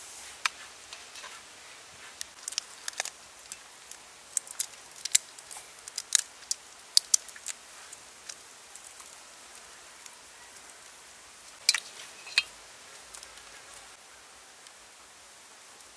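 Irregular sharp clicks and snaps of a raw shrimp's shell and spines being trimmed by hand, many in quick succession over the first half, then two more a few seconds later, over a steady faint hiss.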